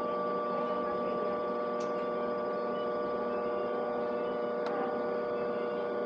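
Steady electrical hum from a Hill-Rom TotalCare hospital bed's machinery, holding several constant tones at an even level, with a couple of faint clicks.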